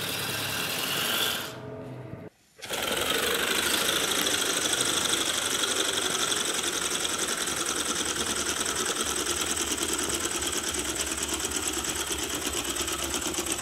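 Balloon-driven 3D-printed oscillating-cylinder air motor running fast: a steady rapid clatter from the rocking cylinder and gears, with a hiss of air leaking from the motor. The sound breaks off for a moment about two seconds in, then runs on steadily.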